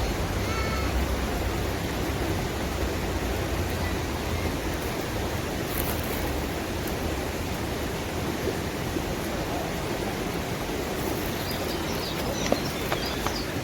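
Steady hissing noise, with a few faint clicks near the end.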